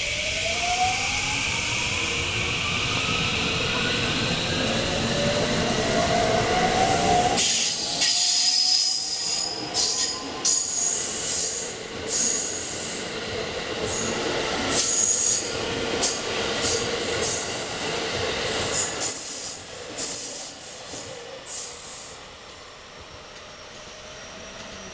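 JR West 223-2000 series electric train pulling away: its inverter-driven traction motors whine in several rising tones as it accelerates. Then come wheel rumble, high-pitched wheel squealing and repeated clacks over the rail joints as the cars run past, fading off about three-quarters of the way through.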